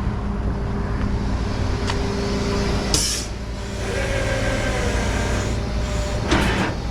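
Tow truck engine running steadily, with a short hiss of air about three seconds in.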